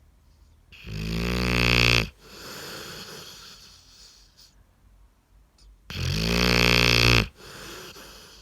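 A sleeping dog snoring: two loud, rattling snores about five seconds apart, each followed by a softer, longer breath.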